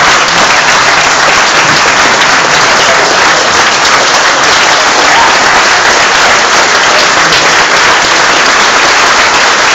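Concert audience applauding, a dense, steady clapping that stays loud throughout.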